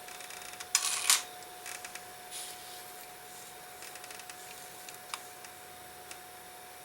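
Small sharp clicks and taps of a watchmaker's tweezers and tools handling parts of a pocket-watch movement at the bench: a quick cluster about a second in and a single tick later on, over a steady faint hum.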